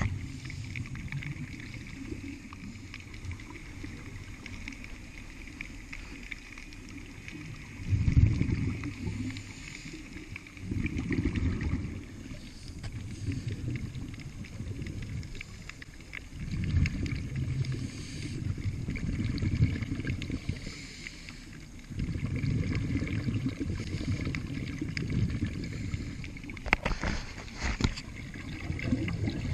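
Scuba diver's regulator exhaling underwater: low bubbling rumbles that come every few seconds and last a second or more, over a faint steady high whine.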